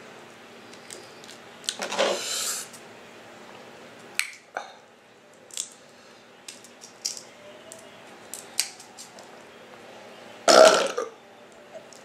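A person eating a seafood boil, with scattered sharp clicks and smacks of chewing and handling the food, then a loud burp about ten and a half seconds in.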